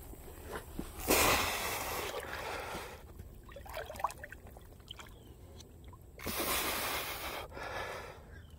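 A person wading into a river, the water sloshing and splashing around the legs. There are two louder surges, one about a second in and one near the end, with softer trickles and small splashes between them.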